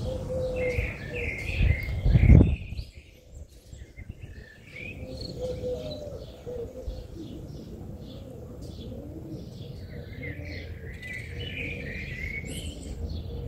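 Small birds chirping and twittering, with a dove cooing low in the second half. A loud low rumble in the first couple of seconds stops abruptly about two and a half seconds in.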